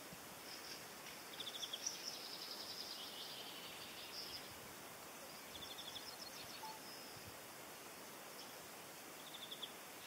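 Faint high-pitched songbird calls over a steady outdoor hiss: short rapid trills about a second and a half in, around six seconds in and near the end, with thinner chirps between them.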